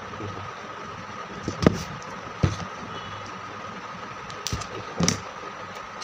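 Craft paper and sellotape being handled and pressed together: about four short clicks and rustles over a steady background hum with a faint whine.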